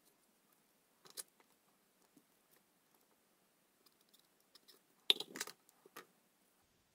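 Faint clicks of small hand tools working on a display circuit board's pin headers: a click about a second in, then a louder cluster of several clicks about five seconds in.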